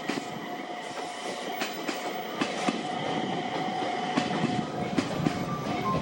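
Electric train running on rails: steady running noise with a thin steady whine and irregular clickety-clack clicks of the wheels over the rail joints.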